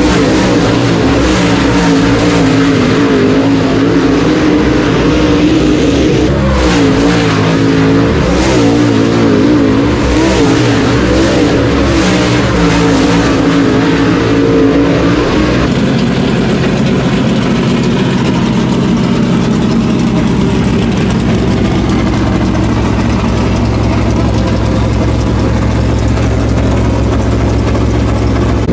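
Dirt late model race cars' V8 engines at racing speed as several cars pass one after another, the pitch rising and falling with each pass. About 16 seconds in the sound cuts to a single race engine running at a steady low idle close by.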